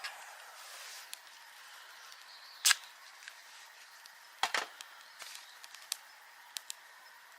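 A few sharp clicks and knocks, the loudest about two and a half seconds in and a quick double knock a little later, over a faint steady hiss.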